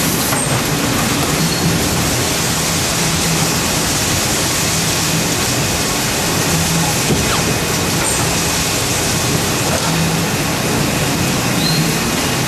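Wohlenberg 137 paper-cutting line running: a loud, steady machine noise with a low hum that comes and goes.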